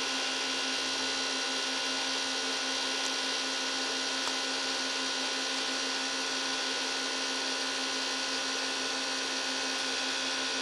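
Cisco Catalyst 2960 network switch's cooling fan whirring steadily: a constant hum with a fainter, higher whine over it.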